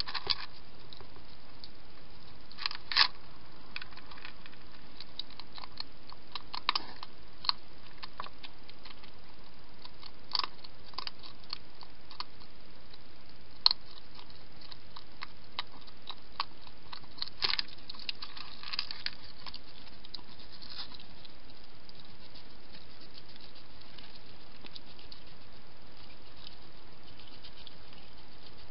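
Wild hedgehog crunching dry food, heard as irregular crisp clicks and crackles with a few louder ones, dying away after about twenty seconds to leave a steady hiss.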